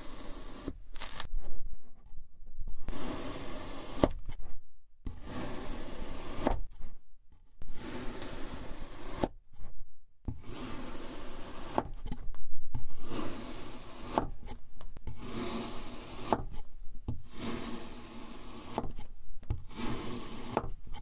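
Kinetic sand being sliced with a plastic knife: a dozen or so separate slicing strokes, each a second or two of scraping through the packed sand, with short pauses between.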